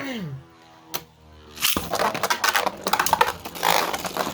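Two Beyblades, a 3D-printed top and a Cho-Z Valkyrie, spinning in a plastic stadium. A steady spinning whine gives way about a second and a half in to a dense stretch of rapid clicks and scraping as the tops clash again and again.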